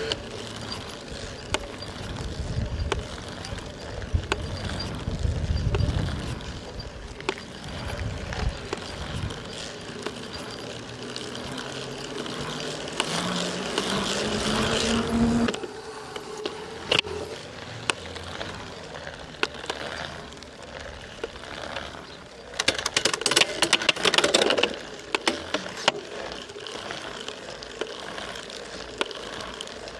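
Shimano EP801 e-bike mid-drive motor running under pedalling, with a rising motor whine about halfway through that cuts off suddenly. Sharp cracks and knocks come through repeatedly, with a dense burst of clicking and rattling later on: the cracking/knocking that appears once per crank turn as the drive unit's axial play grows.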